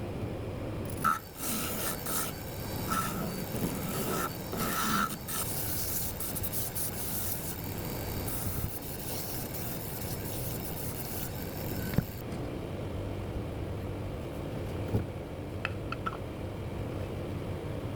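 Abrasive rubbing against a Burma teak plate spinning on a wood lathe, a hissing, uneven scrub from about a second in until roughly two-thirds through, typical of sanding the piece. Afterwards only the lathe's steady running hum is left.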